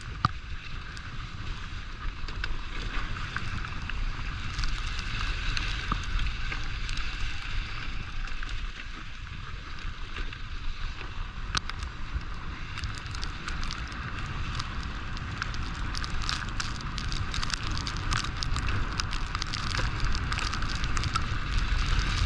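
Steady rushing noise of gliding fast over snow behind a running dog team, with wind rumbling on the microphone. Many small crunching ticks come in over the second half.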